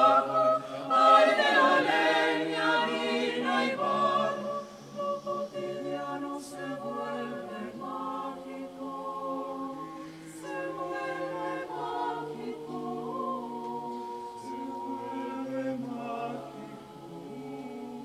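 Small mixed-voice vocal ensemble singing a cappella, men's and women's voices holding chords in harmony. Loud for the first few seconds, then softer from about four seconds in.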